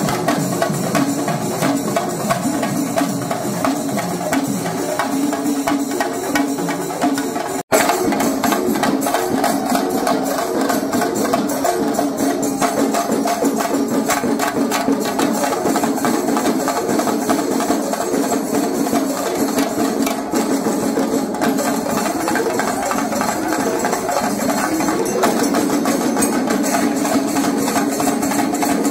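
Percussion music: rapid drumming with a held, wavering melody line over it. It cuts out for an instant about eight seconds in.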